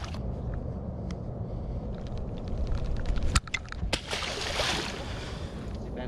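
Water splashing and sloshing against a boat's hull as a hooked bowfin thrashes at the surface, under a steady wind rumble on the microphone. A few sharp clicks come a little past three seconds in.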